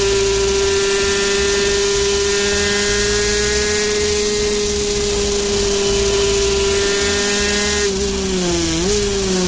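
50cc two-stroke racing motorcycle engine running at high revs at speed, heard on board. It gives a steady, high-pitched whine that holds almost constant, then its pitch dips and climbs back about eight to nine seconds in.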